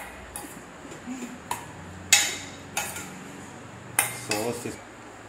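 Stainless steel bowl clinking and knocking as soya chunks are tossed and mixed in it by hand: a string of sharp metallic clinks, the loudest about two seconds in and again at four seconds.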